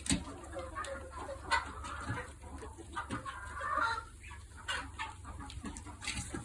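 Chickens clucking close by, with scattered sharp clicks and taps among them.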